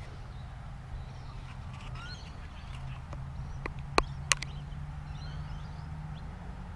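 Outdoor ambience: a low steady rumble with faint bird chirps. Two sharp clicks about four seconds in, a third of a second apart, are the loudest sounds.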